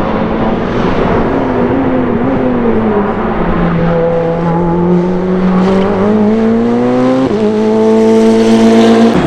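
Ferrari 488 Challenge Evo race car's twin-turbo V8 falling in pitch as the car slows into a corner, then rising steadily as it accelerates out past the camera, loudest near the end.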